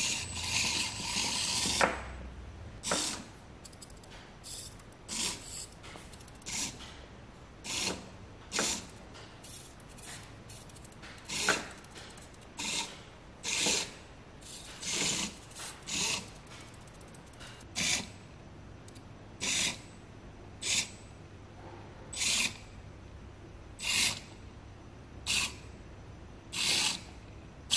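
SNT Y60 micro 4WD RC car's tiny electric drive motor and gears whirring in short spurts as it is driven over small bumps. It gives one longer run at the start, then about twenty brief bursts, each about half a second long.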